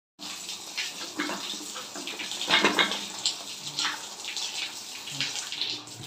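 Water running and splashing: murky rinse water flushing out of an electric water heater's tank, with irregular splashes and the loudest gush about halfway through.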